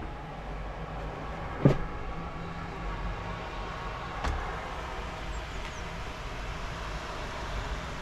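Steady outdoor noise of rain and passing traffic on a wet street, with a single sharp knock about one and a half seconds in.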